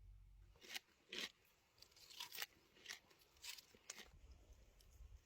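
Crunchy food being bitten and chewed close to the microphone: about seven short, crisp crunches, irregularly spaced, with quiet gaps between.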